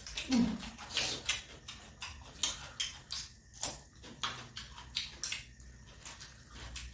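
People chewing and smacking their lips while eating, making a run of irregular short wet clicks, a few a second.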